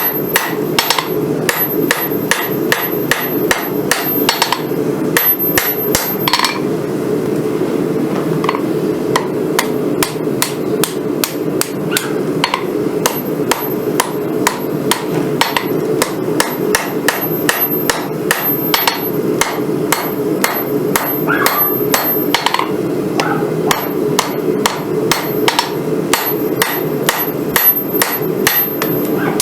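Hammer striking hot Damascus steel on an anvil, drawing out a knife blade: sharp blows at about two to three a second, with short pauses between runs of strikes. A steady roar runs underneath.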